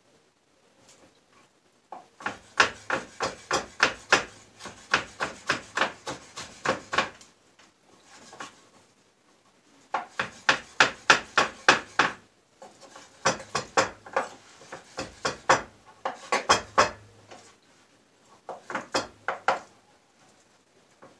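Kitchen knife chopping herring on a wooden cutting board: quick strokes, about four or five a second, in runs of a few seconds with short pauses between.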